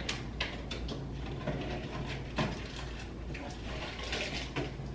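Light kitchen clatter: scattered soft knocks and clicks of things being handled and set down, over a low steady hum.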